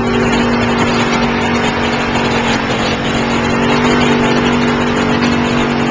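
Off-road vehicle engine running at a steady pitch as it drives through a shallow river, with water rushing and splashing around it.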